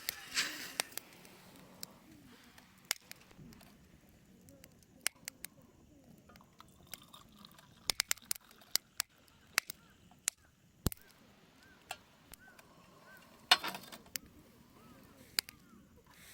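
Irregular sharp clicks and taps, one of them much louder about two-thirds of the way through, with a run of faint repeated chirps a little before it.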